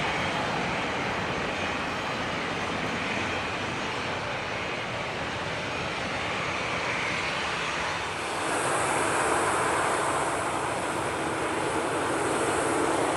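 Jet airliner engines running in a steady noisy rush; about eight seconds in the sound gets louder and brighter, with less low rumble and a high hiss added.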